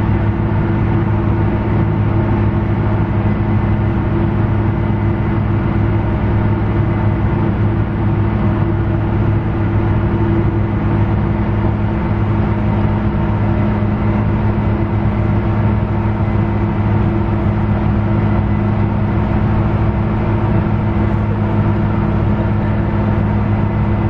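Tractor engine heard inside the cab, running at a steady working speed with an unchanging low hum as it pulls a grain cart beside a working combine.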